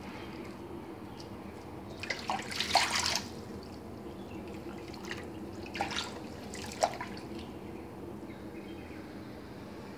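Watercress being washed by hand in a basin of water: water drips and splashes as the leaves are swished, with the loudest splashing about two to three seconds in and two shorter splashes near six and seven seconds. A steady low hum runs underneath.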